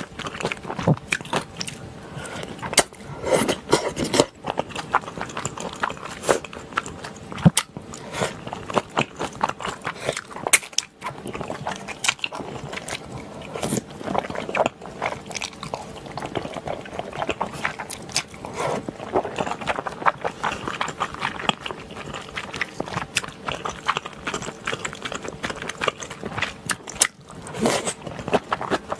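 Close-miked eating sounds from a mouthful of spicy stir-fried gopchang (intestines) with chewy Chinese glass noodles: wet chewing and slurping of noodles, with many short smacking clicks.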